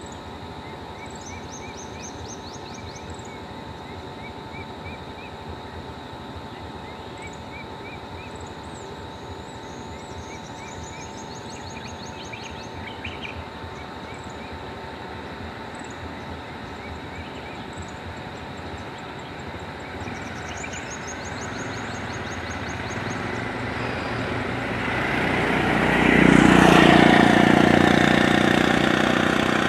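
Birds chirping over a steady outdoor background. Then a three-wheeler auto-rickshaw's small engine grows louder as it approaches and is loudest near the end as it passes close by.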